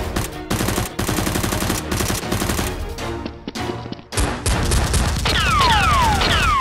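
Rapid strings of machine-gun-style gunfire sound effects standing in for toy Nerf blasters being fired, over background action music. From about five seconds in, several falling whistling tones overlap the shots.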